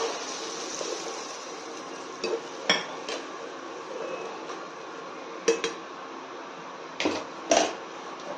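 Metal spoon stirring besan dumplings in water in a non-stick kadhai, knocking against the pan about six times, the sharpest knocks coming near the end, over a steady hiss.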